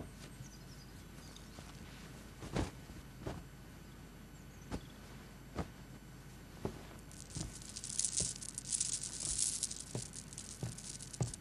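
Soft footsteps on a wooden floor, roughly one step a second. A light rustling hiss joins them from about seven to ten seconds in.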